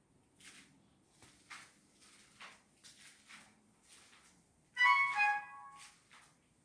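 Repeated short swishing strokes, roughly one a second, from hand work on wallpaper. About five seconds in, a brief pitched, musical-sounding tone lasting about a second is the loudest thing.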